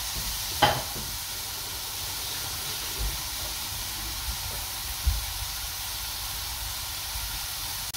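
Spice-marinated lamb cubes sizzling in a frying pan with no added oil: a steady high hiss with an occasional sharp pop, about a second in and again near the middle.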